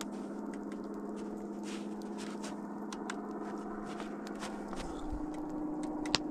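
Scattered light crackles and crunches over a steady hum. About five seconds in, the hum jumps higher in pitch.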